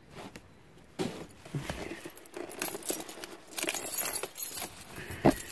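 Keys jangling, with scattered clicks and rattles and one sharp knock near the end.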